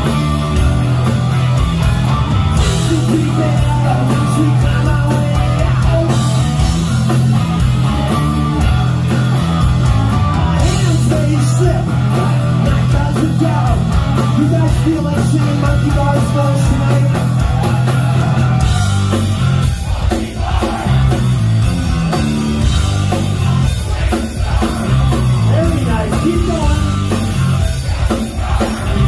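Hard rock band playing live through a club PA: distorted electric guitars, bass and drums.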